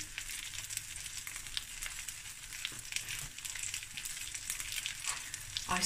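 Chicken drumsticks and skinless thighs sizzling in a stainless steel frying pan, with no oil, in the fat rendering from the drumsticks: a steady hiss scattered with small crackles and pops.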